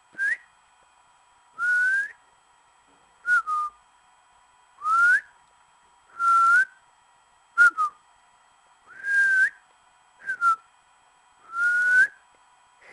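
A person whistling with the lips in a series of short notes, about one every second or so. Some glide upward, some are held level, and some come as quick falling pairs.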